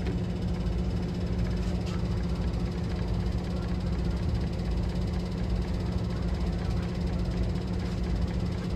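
Diesel train engine running with a steady low drone and a constant hum.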